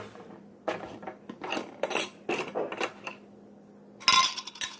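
Dishes and cutlery clinking and clattering, with a louder, ringing clatter about four seconds in.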